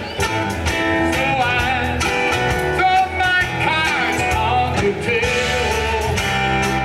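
A live band playing: mandolin with electric bass, guitar and drums.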